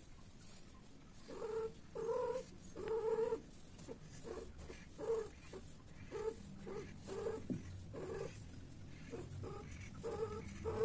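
Long-haired domestic cats mating, with one cat giving a run of a dozen or so short, low yowls, one every half second to a second, starting a little over a second in.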